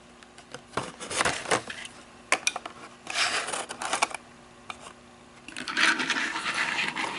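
Handling noise from a small die-cast toy car and its packaging: several sharp clicks and taps, then two stretches of rubbing and scraping, the longer one near the end.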